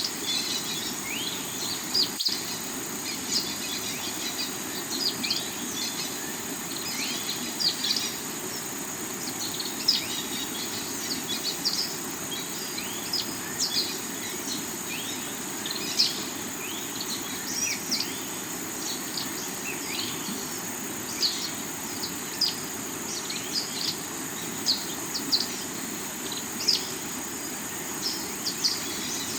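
Water of a rocky river running steadily, with many short, high bird chirps over it and a steady high insect drone. A momentary dropout in the sound about two seconds in.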